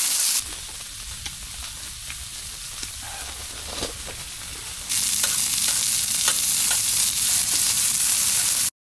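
Slices of meat sizzling on the grill plate of a camping barbecue grill. The sizzle drops away to a quieter low rumble with a few light clicks from about half a second to five seconds in, then comes back loud and cuts off suddenly just before the end.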